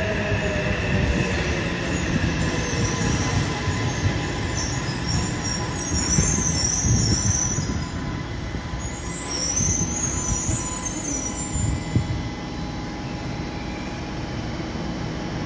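Yokohama Municipal Subway Blue Line train braking to a stop at a station platform. Its motor whine falls in pitch at first, high wavering squeals come from the wheels and brakes twice, and the running rumble eases off after a sharp click near the end as the train halts.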